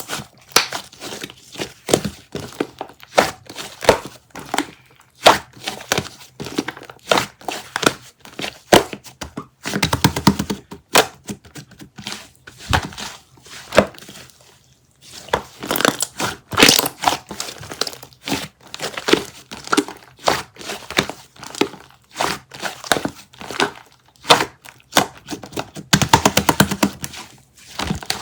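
Crinkling and crackling as something papery or plastic is squeezed and handled, in quick irregular bursts of sharp crackles with short pauses between them.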